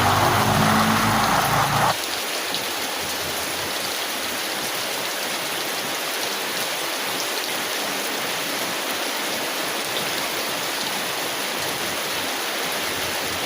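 Steady rain falling on a thin tin umbrella: a dense, even hiss with faint scattered ticks of single drops. For about the first two seconds a louder, engine-like hum sits over the rain and cuts off abruptly.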